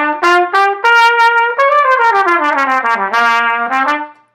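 Solo trumpet playing a short melodic phrase: quick tongued notes, then a held higher note about a second in. It slides down in a long descending glide to a low note, then climbs back up through a few notes and fades out near the end.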